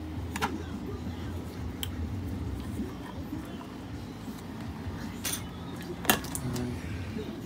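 Handling noise: four sharp clicks and clinks of small tools and parts being moved on a workbench, the loudest about six seconds in, over a low steady hum.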